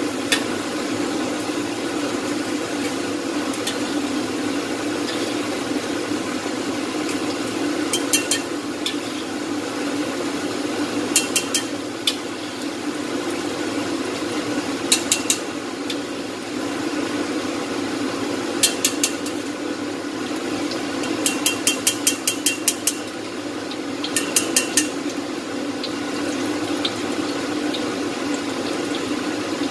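Oil sizzling steadily in a wok as fried sliced chillies are lifted out. A metal spatula clinks against the wok and a stainless bowl in about seven short bursts.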